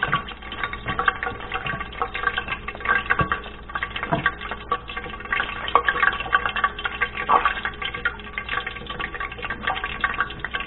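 Battered potato frying in hot oil in a pan: the oil sizzles and crackles steadily with many small irregular pops.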